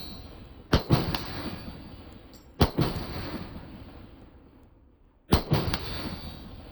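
Three shots from an AR-15 pistol with a 7.5-inch barrel, spaced about two seconds apart. Each crack is followed a fraction of a second later by a second sharp spike, then a long fading echo.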